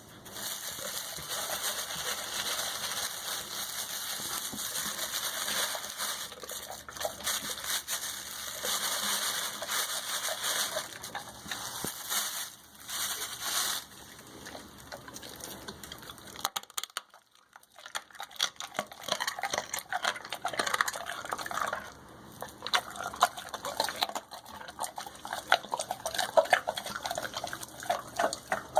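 Great Dane chewing raw chicken, bones and all: wet, sloppy chewing, then sharp irregular crunches of bone after a brief pause.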